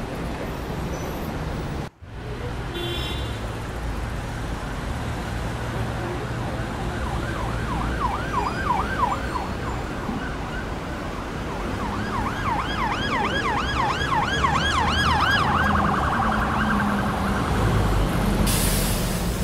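Emergency vehicle siren in a fast rising-and-falling yelp, about four sweeps a second, heard twice: a short burst about seven seconds in and a longer one a few seconds later. It sounds over a steady rushing background, and the sound cuts out briefly near the start.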